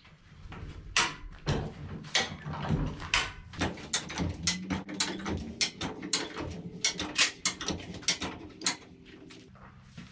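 A red high-lift farm jack being set against a loaded trailer and then pumped. After a few scattered metal knocks, a quick, even run of sharp metal clicks, about three a second, starts about three and a half seconds in as the jack's handle is worked and it ratchets up its bar.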